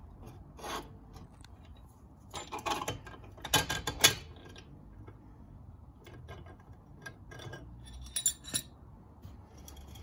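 Steel rear axle of a Sinnis Terrain 125 motorcycle being slid out through the wheel hub and swingarm by hand: scattered metal scrapes and clinks, loudest about four seconds in.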